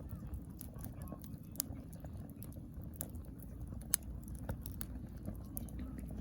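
Wood fire crackling in a fire pit, with sharp pops about once a second, the loudest about four seconds in, over a steady low rumble.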